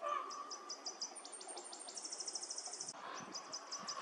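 A small songbird singing a high-pitched song twice. Each song is a run of quick separate notes that speeds into a fast, even trill, about two and a half seconds long, with a short gap between the two.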